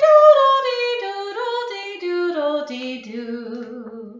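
A woman singing alone, unaccompanied, a nursery-song melody that steps downward and ends on a long, low held note.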